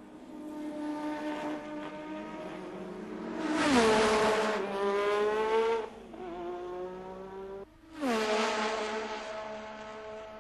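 Formula One car engine running at high revs, its pitch dropping steeply as the car brakes and changes down for a corner, twice, with abrupt breaks between passes. The second pass fades away near the end.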